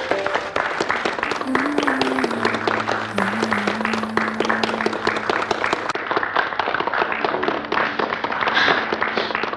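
Audience applauding with dense, steady clapping, over soft background music holding long notes.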